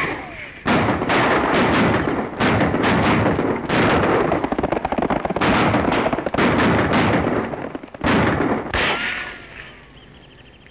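Rapid revolver gunfire: many shots in quick, overlapping volleys that stop about nine seconds in, with falling ricochet whines near the end.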